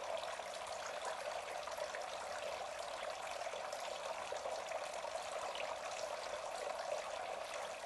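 Water from a tiered garden bird fountain splashing and trickling steadily into its basins.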